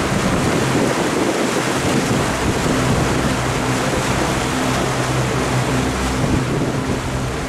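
Boat engine running steadily at low speed, a low even hum under the rush of water along the hull, with wind buffeting the microphone.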